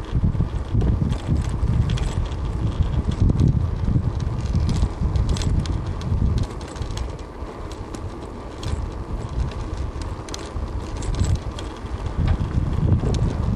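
Wind buffeting the microphone of a camera moving along a road: an uneven low rumble that swells and dips, with scattered light clicks and rattles.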